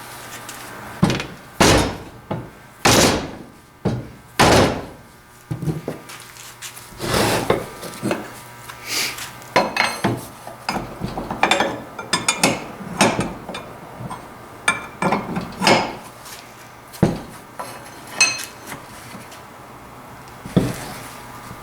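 Irregular knocks, taps and scraping strokes of hand tools working on an old woodworking vise, a couple of dozen hits of varying strength with short pauses between them.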